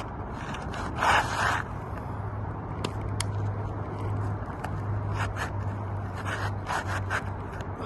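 Short scraping strokes over a steady low hum: a loud scrape about a second in, two sharp clicks around three seconds, then a run of short scrapes near the end.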